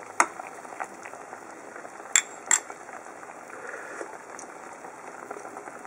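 Buri daikon simmering in soy-based broth in an aluminium pot under a paper drop-lid: a steady low bubbling. A metal ladle clicks as it dips into the broth to take a taste, and there are two sharp metal clinks about two seconds in.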